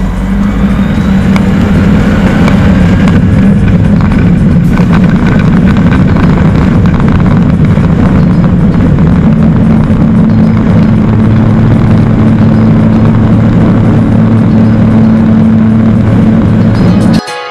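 Light aircraft engine and propeller of an Aeroprakt LS32 at takeoff power, heard from inside the cockpit: a loud, steady drone that grows louder about half a second in and then holds during the takeoff roll.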